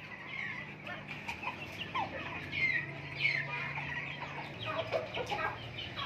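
Domestic chickens clucking and chicks cheeping in short, scattered calls, some falling in pitch, with a low steady hum underneath.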